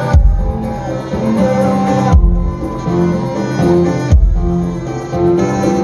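Live band playing an instrumental passage with no singing: held keyboard and saxophone notes over a deep bass hit that lands about every two seconds.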